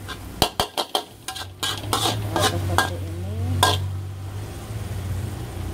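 Metal spatula scraping and knocking against a metal wok while stirring diced squid and vegetables: about ten sharp scrapes and knocks over the first four seconds, over a faint sizzle. A steady low hum runs beneath from about a second and a half in.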